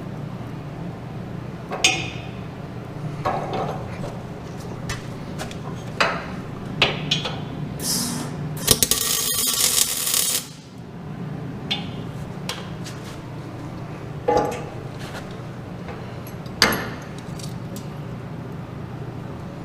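Steel parts and tools clanking and knocking now and then, with about two seconds of loud crackling hiss from a tack weld near the middle, over a steady low hum.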